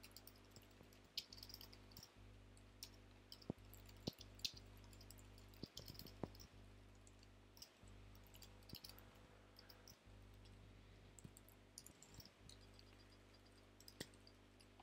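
Faint computer keyboard typing: scattered, irregular keystrokes over a low steady hum.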